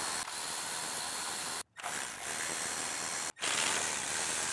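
Handheld power tool running steadily as it spins out the 10 mm bolts around an engine's valve cover, in three stretches that each stop abruptly.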